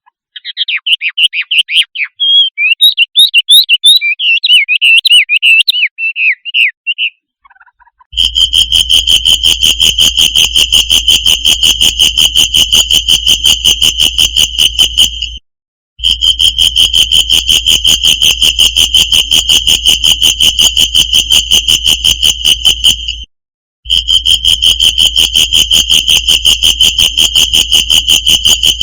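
A shrike's rapid, varied chattering song for about seven seconds. After a short pause, a loud, steady, fast-pulsing insect trill takes over and stops abruptly twice for a moment, the kind of insect call used to tutor a caged shrike.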